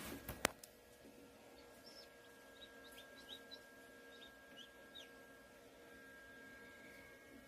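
Newly hatched chick peeping faintly: a scatter of short, high, falling peeps through the middle, over the steady hum of the incubator's fan. A sharp click about half a second in is the loudest sound.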